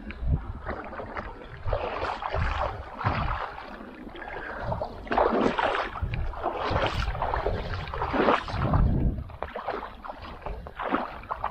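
River water splashing and swishing in irregular strokes, with wind rumbling on the microphone.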